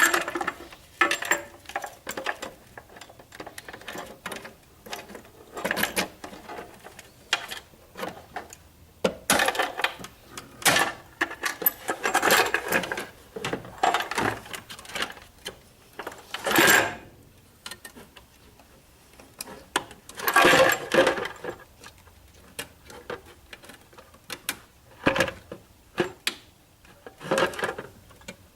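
Irregular clicks, knocks and rattles of a fire alarm manual pull station being handled and reset by hand, with a few longer bursts of scraping and fumbling.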